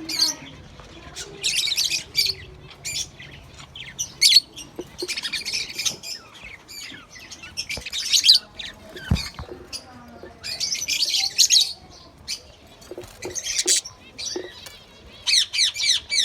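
Budgerigars chirping and chattering in repeated quick bouts of high, warbling chirps.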